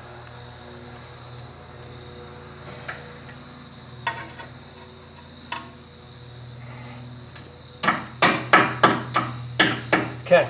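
A few light clicks of tool handling, then a quick run of about ten hammer blows on metal, about four a second, starting near the end. The blows are the loudest sound, each ringing briefly.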